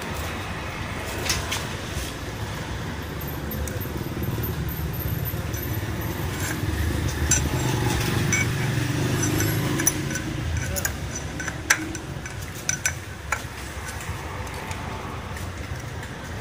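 Scattered sharp metallic clinks, like tools or small metal parts being handled, over a steady low rumble.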